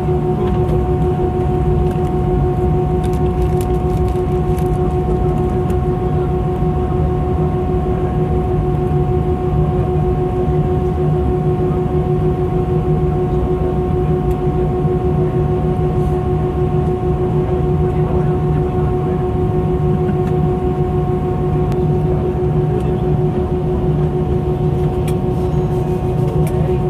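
Jet airliner cabin noise while taxiing after landing: a steady low rumble with a constant whine held on a few pitches.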